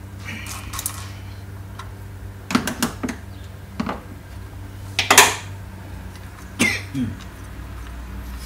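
About half a dozen sharp metallic clinks and taps from a socket wrench and the loosened 10 mm coil-on-plug bolts on the engine, the loudest about five seconds in, over a steady low hum.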